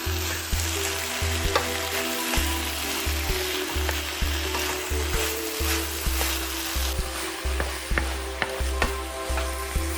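Food sizzling steadily as it fries in a pan, stirred with a utensil that clicks now and then against the pan.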